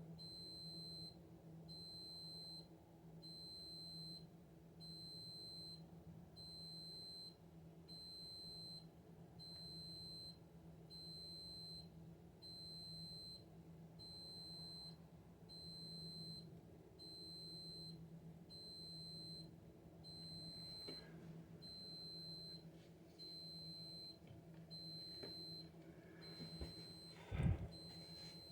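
High electronic beep repeating steadily about once a second over a faint, steady low hum, with a single knock near the end.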